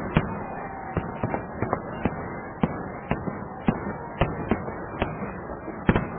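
Fireworks going off in a stadium: irregular sharp bangs, about one or two a second, over a steady background haze, with a close pair of bangs near the end.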